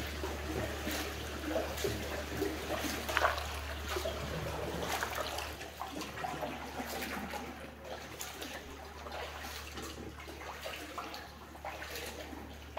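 Kayak paddles dipping and splashing in canal water, with irregular splashes and trickling, echoing inside a brick canal tunnel.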